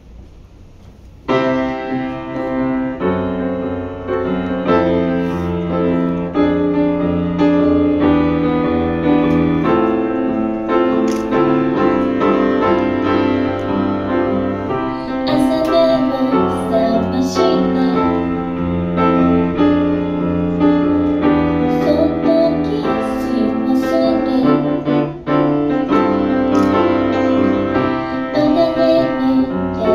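Live grand piano starts playing chords about a second in, with a steady pulse; a woman's singing voice joins around halfway through.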